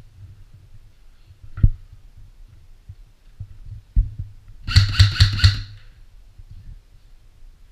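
Airsoft electric rifle (AEG) firing four quick shots, about four a second, with a short echo in a small bare room. Earlier there are two single dull knocks of handling.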